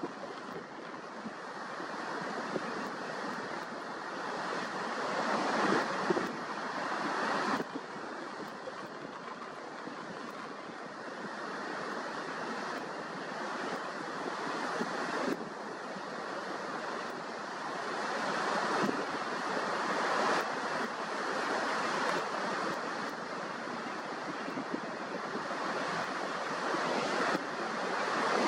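Ocean surf washing onto a beach: a steady rushing noise that swells and falls back several times as waves break.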